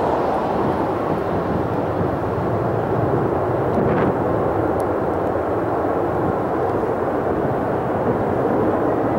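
Airbus A320's twin jet engines running at takeoff power for the start of the takeoff roll, heard from a distance as a steady, even rush of jet noise.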